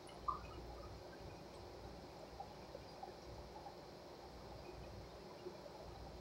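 Faint chewing of a bread-and-chicken sandwich, with scattered small mouth clicks and a sharper click just after the start, over a low steady hum.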